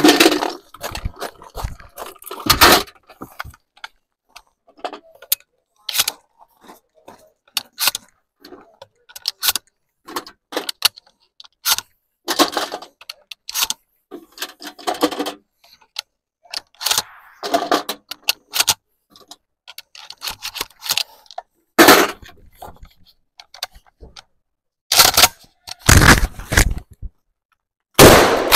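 Gunshots in a timed shooting run, several loud ones in the last seven seconds or so, with scattered clicks, clacks and gun-handling noise between them.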